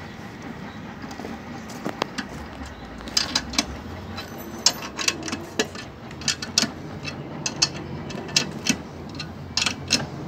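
Ratchet wrench clicking in short, irregular runs, with small metallic clinks, as it turns the centre bolt holding the blade of an upturned rotary lawnmower. The clicks start about two seconds in and come thicker from about three seconds on.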